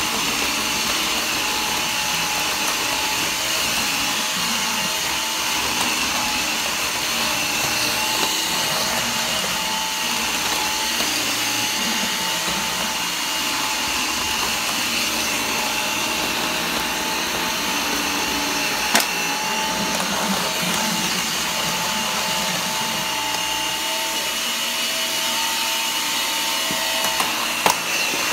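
Gtech AirRam 2 cordless upright vacuum cleaner running steadily as it is pushed across the floors, with an even motor whine. Two sharp knocks, one about two-thirds of the way through and one near the end.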